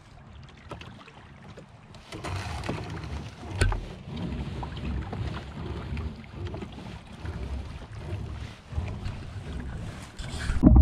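Trap line being hauled hand over hand into a small wooden rowboat, with water lapping at the hull and wind on the microphone, and a single sharp knock about three and a half seconds in.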